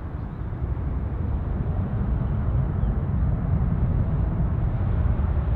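Jet airliner on landing approach: a deep engine rumble that swells over the first couple of seconds as the aircraft nears, then holds loud and steady.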